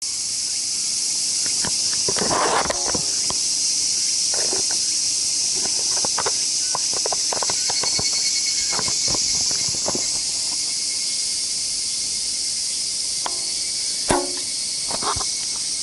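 3D-printed mini crossbow with rubber-band limbs being handled, with scattered small plastic clicks and rattles, then one sharp snap near the end as it is shot. A steady high-pitched insect chorus runs underneath.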